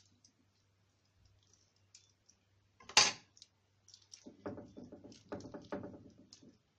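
Kitchen handling sounds as food is laid into a pan: one sharp knock about three seconds in, then a quick run of light clicks and rustles.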